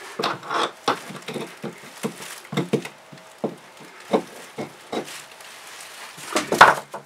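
Rotted overhead deck wood being pried and picked apart with a hand tool: irregular cracks, scrapes and crumbling as the rot-softened wood breaks away, with a louder cluster of cracks about six and a half seconds in.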